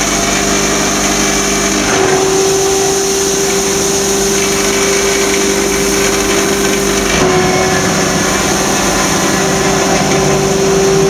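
Electric foam shredder running steadily with a constant machine hum and whine while foam scraps are fed into its hopper. The tone shifts slightly about two seconds in and again about seven seconds in.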